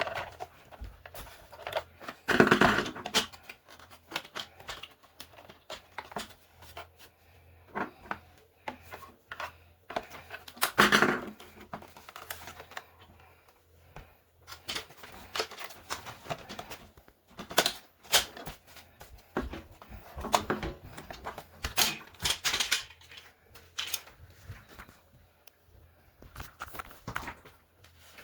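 Irregular clicks, taps and knocks of the carpet cleaner's plastic housing and tools being handled during disassembly, with a few louder clatters about two and a half, eleven and twenty-two seconds in.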